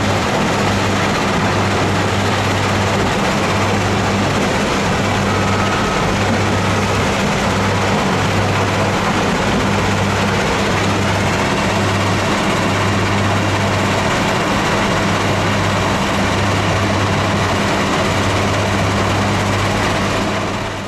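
Wheel loader's diesel engine running steadily under a wide noise, with a low drone that breaks off and returns every second or so.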